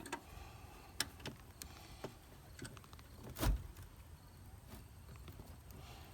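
Scattered clicks and light metallic knocks from work on a Jeep's door hinge hardware, with one louder thump about three and a half seconds in.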